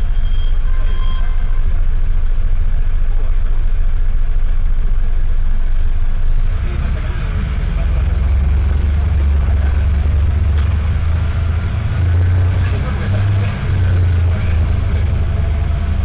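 Mercedes-Benz OM904LA four-cylinder turbodiesel of a city bus with an Allison automatic, heard from inside the bus while driving. The air-conditioning compressor and its pulley are mixed in with the engine note. The low rumble grows heavier about six and a half seconds in.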